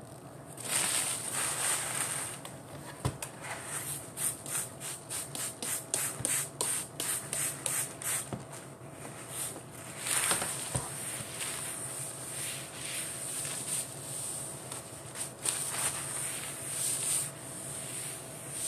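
Disinfectant being sprayed onto a tabletop: a run of short hissing squirts, closely spaced in the middle, with a few longer sprays.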